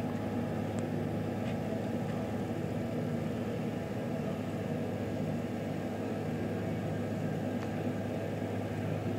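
DIY CNC machine's motors giving a steady low hum as the machine slowly moves a probing pin around the workpiece on a test trace.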